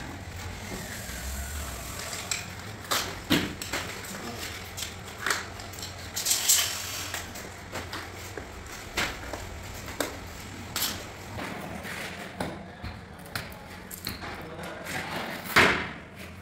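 Irregular sharp plastic clicks and knocks of a tile-levelling system being set on large porcelain floor tiles: wedges pushed into their clips with levelling pliers. The loudest knock comes near the end.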